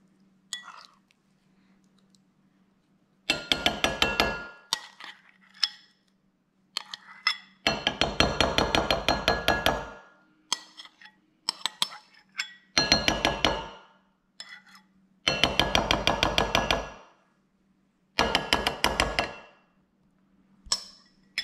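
A metal spoon scraping and clinking rapidly against a glass bowl in five bursts of one to two seconds each, scooping out thick sour cream.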